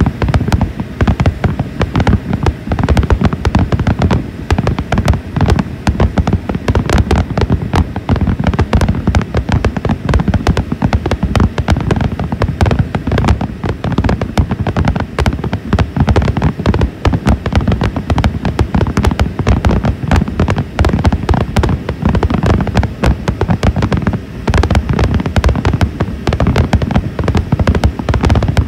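Fireworks display in full finale: a dense, unbroken run of booms and crackling bursts, many bangs a second.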